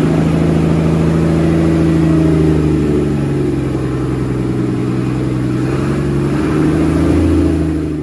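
Leyland Tiger bus engine idling steadily, briefly swelling a little louder about seven seconds in.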